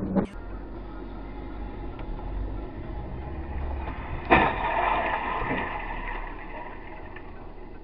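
Car collision picked up by a dashcam mic over steady in-car road noise: about four seconds in, a sudden loud crash of impact, followed by about a second of fading clatter.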